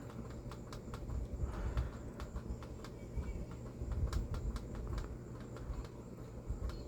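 Small irregular metallic clicks and taps as a screw is started and turned by hand into a freshly drilled and tapped hole, over a steady low hum of background noise.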